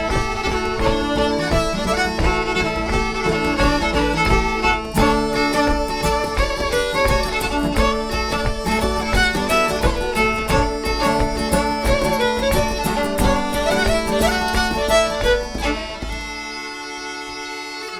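Celtic traditional dance tune played by a band with fiddle leading over guitar and bodhrán, in a brisk steady rhythm. About sixteen seconds in the tune ends on a held final chord that rings out and fades.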